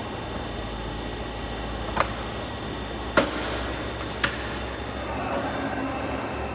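Downspout forming machine running with a steady hum, with three sharp metallic knocks, the second the loudest, about two, three and four seconds in.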